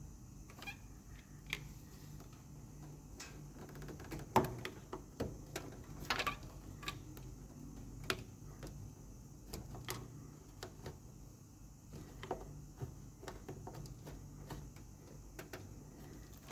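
Irregular light clicks and knocks of small parts and tools being handled during a pump repair, the sharpest about four seconds in, over a steady low hum.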